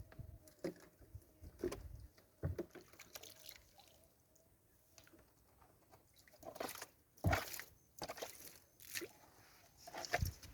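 Water splashing and sloshing in short, irregular splashes, with a few louder splashes in the second half.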